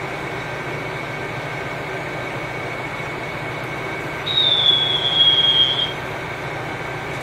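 KiHa 201 series diesel railcar running, heard from inside the car as a steady rumble with a faint steady high tone. About four seconds in, a loud, high wheel squeal sets in, sliding slightly down in pitch, and stops about a second and a half later.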